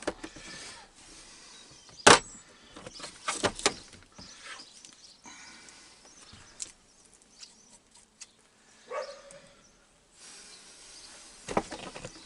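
Scattered knocks and clicks of hands handling tools and parts, the loudest one about two seconds in, followed by a quick run of knocks, and a short squeak near the end.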